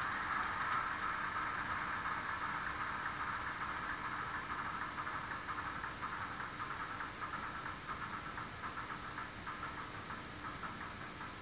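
Recorded ALCO 251 turbocharged diesel prime-mover sound from a TCS WOW DCC sound decoder, played through the model locomotive's small speaker, running down at shut-down. The steady engine sound fades gradually and thins into separate beats toward the end.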